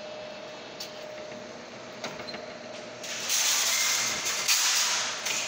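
Claw crane machine running: a steady hum with a few sharp clicks, then a loud rushing noise about three seconds in that lasts about two seconds.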